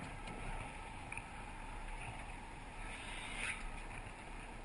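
Steady low engine rumble on a ferry's car deck, with a brief hiss about three and a half seconds in.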